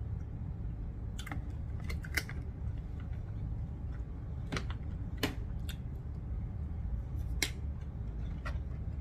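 Scattered sharp clicks and taps of a plastic spoon and plastic containers being handled on a foil tray, about eight in all, over a steady low hum.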